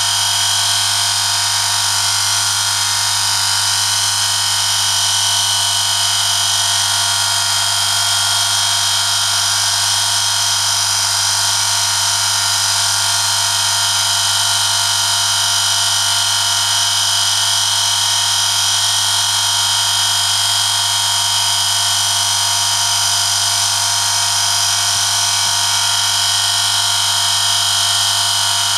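Electric motor of a home-built friction test rig running steadily while a steel sample, loaded by a 1 kg lever weight, rubs against the spinning shaft in 5W-30 engine oil. The result is a constant metal-on-metal whine with a steady high tone over a low hum.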